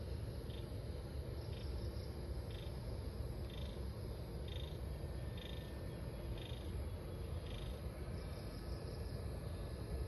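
A frog calling: short high chirps repeated about once a second, stopping near the end. A steady low rumble runs underneath.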